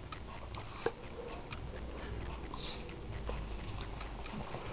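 A pug breathing noisily and snorting, with scattered light clicks, one sharper click about a second in, and a short hiss a little past halfway.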